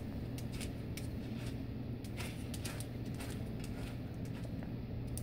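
Faint scattered ticks and clicks as a bulldog paws and steps about on concrete, over a steady low hum.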